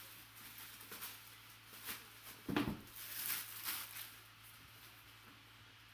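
Packaging being handled and opened: irregular rustling and crinkling, with a thump about two and a half seconds in, over a steady low electrical hum.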